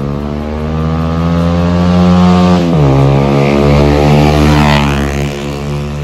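Bajaj Pulsar 150's single-cylinder engine through an aftermarket SC Project exhaust, riding under acceleration: the pitch climbs, drops sharply about two and a half seconds in at an upshift, climbs again, then eases back near the end.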